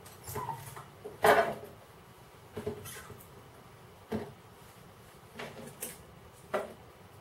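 Kitchen knife cutting a leek on the worktop, with chopped pieces handled into a bowl: a few separate knocks and taps, the loudest about a second in.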